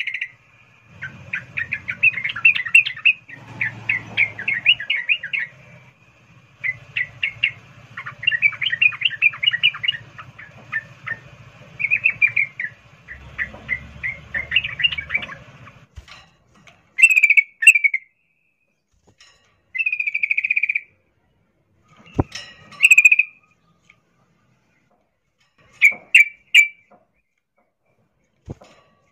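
Yellow-vented bulbul (trucukan) calling: quick bubbly runs of chirped notes for about the first half, then short separate phrases with pauses between them. It is a female's call to a male.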